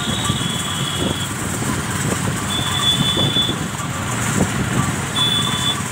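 Steady rumble of motor vehicles on the move, with a high, steady beep sounding three times, each for about a second.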